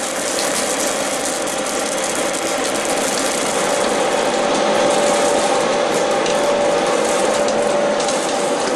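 Mechanical argan-nut shelling machine running steadily: a constant whine over a dense, even rattle.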